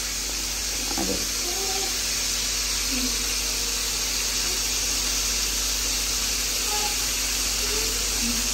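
Hot oil sizzling steadily in a pan as stuffed vegetables fry: an even, unbroken hiss.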